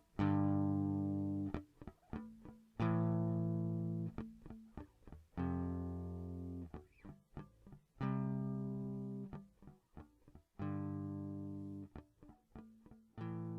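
Guitar playing a repeating chord pattern: a chord struck about every two and a half seconds and left to ring and fade, with short muted strums between the chords.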